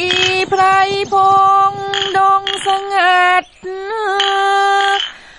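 A woman singing a slow song in Thai, holding long steady notes with short breaks between phrases.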